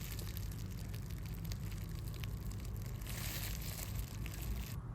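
Faint crinkling and rustling of plastic packaging being handled, with a few small ticks and brighter rustles about three seconds in.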